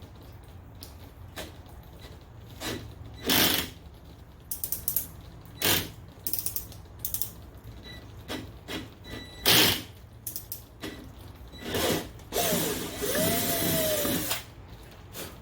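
Cordless drill with a 25/64-inch bit enlarging pilot holes, run in a series of short bursts and then a longer run of about two seconds near the end, its motor pitch rising and falling under load.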